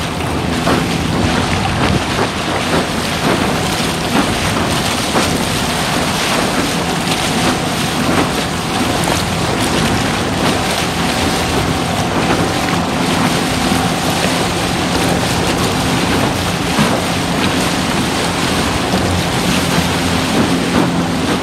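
Water rushing and splashing along a motorised SUP board under way, with wind buffeting the action-camera microphone. Under the rushing runs a faint steady hum from the board's Flipsky 65220 electric motor.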